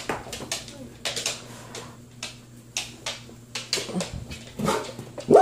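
Light scattered clicks and knocks, then a dog gives a short bark near the end.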